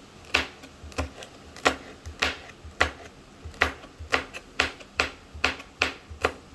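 Kitchen knife chopping red chillies on a cutting board: a sharp knock of the blade on the board about twice a second, a little quicker in the second half.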